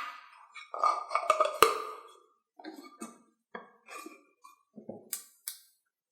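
Handling clatter of a battery-powered self-stirring mug: a knock and a run of clinks in the first two seconds, then scattered small clicks and taps, with two sharp clicks near the end.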